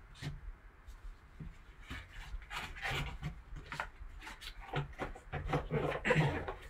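Gloved hands handling a cardboard trading-card box and its foam insert: cardboard and foam rubbing and scraping, with light knocks. The scraping is busiest about halfway through and again near the end as the box lid is handled.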